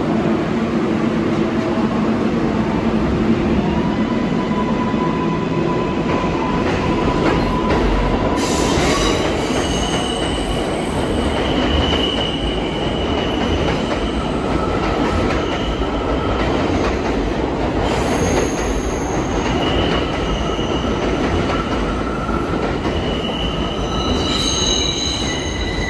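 An R142/R142A New York City subway train rumbling along the track at close range, its steel wheels squealing against the rail in several high steady tones that come and go from about nine seconds on.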